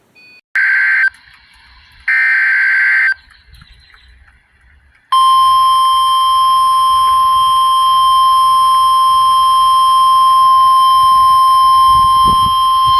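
Emergency alert broadcast tones: two buzzy digital header bursts about a second apart, then, about five seconds in, the loud steady 1050 Hz NOAA Weather Radio warning alarm tone, which signals that a new weather warning follows.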